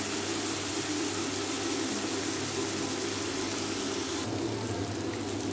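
Chopped onions and bitter gourd peels sizzling steadily in hot oil in a karahi.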